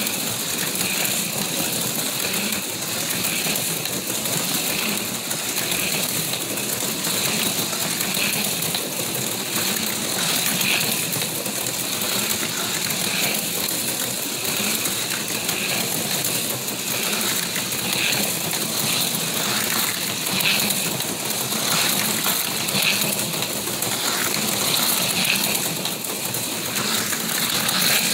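HO-scale slot cars running on the track: a steady high whirring of small electric motors with a light, continuous mechanical rattle.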